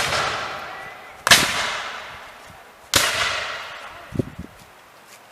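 Scattered black-powder musket shots: three sharp reports, at the start, about a second in and about three seconds in, each echoing away over a second or more.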